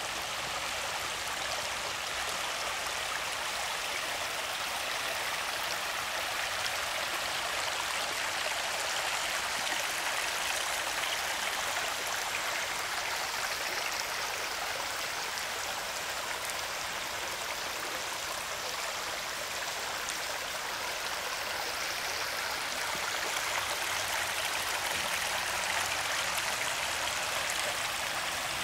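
Shallow creek water running over flat bedrock in a riffle: a steady, even rush of flowing water with little low rumble.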